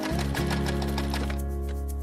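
Short intro jingle music: sustained low notes under a fast, even run of ticks, with the ticks fading out about a second and a half in.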